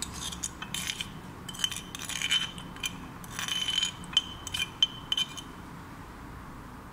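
Metal spoon scraping chilli sambal out of a mortar into a ceramic ramekin: a run of scrapes and light clinks, some ringing with a high note. It stops about five seconds in.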